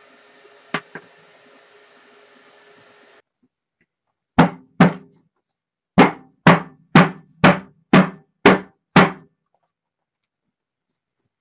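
Nine sharp knocks, each with a short ring: two close together, then after a gap seven in a steady beat about two a second. Before them a faint steady hiss with two light clicks, which cuts off to dead silence.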